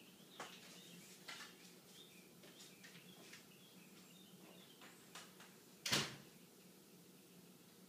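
A few light clicks and taps, then one sharp, much louder knock about six seconds in, like a household door or cupboard being shut, with faint high chirps near the start.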